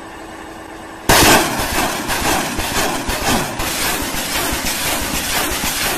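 Rocket launch from a truck-mounted rocket launcher: a sudden loud blast about a second in, then a sustained rushing noise as the rocket motor burns and the rocket flies off.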